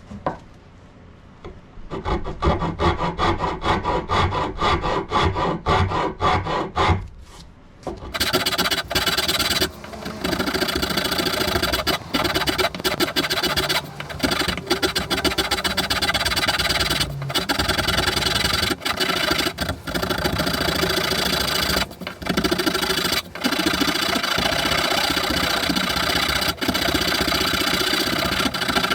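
A hand file rasping back and forth across the wooden handle of a Husqvarna axe, carving a textured grip. Quick strokes, about four a second, start about two seconds in, stop briefly around seven seconds, then go on faster and denser.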